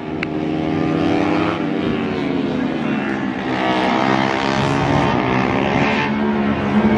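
Racing motorcycle engine revving as it is ridden hard through the corners, its pitch falling and rising over and over as the rider backs off and opens the throttle.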